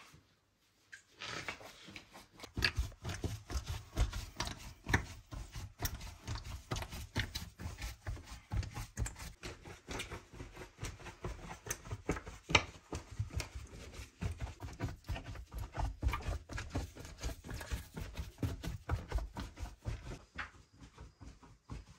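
Large batch of bread dough being kneaded by hand in a wooden trough: dull, irregular thumps and slaps of the dough, several a second, starting about a second in.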